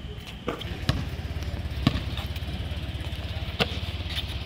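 A motorcycle engine idling with a rapid, even low throb, set against a few sharp knocks from the game on the court.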